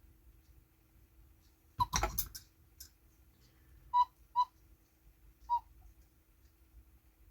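Cuckoo clock parts being handled: a short clatter of clicks and knocks, then three brief whistle toots of one pitch, the first two close together and the third a second later, as a bellows pushes air through its whistle pipe.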